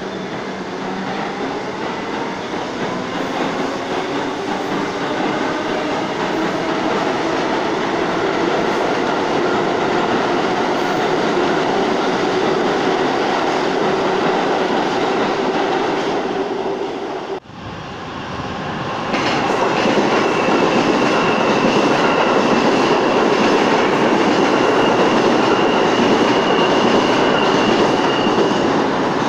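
New York City subway trains on the tracks beyond the platform: first a train accelerating with a rising motor whine over the rumble of its wheels on the rails, then, after a brief break, a train running past at speed with a loud rail rumble and a steady high-pitched whine that fades near the end.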